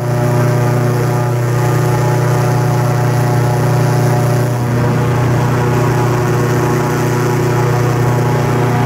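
Airboat's engine and air propeller running steadily at speed, a loud, even drone with a strong low hum.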